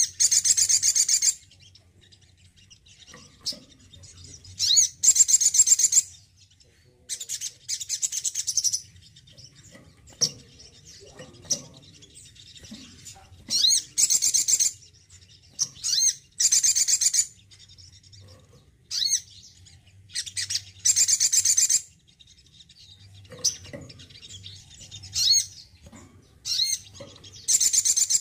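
Male olive-backed sunbird singing: short, high-pitched, rapid twittering phrases about every two seconds, with brief pauses between them.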